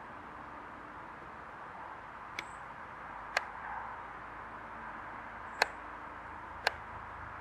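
Distant hovering police helicopter heard as a faint steady hum under outdoor background noise. Four sharp clicks come between about two and seven seconds in.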